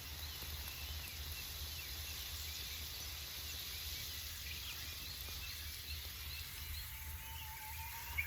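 Small birds chirping, a run of short, high, repeated notes, over a steady low background rumble.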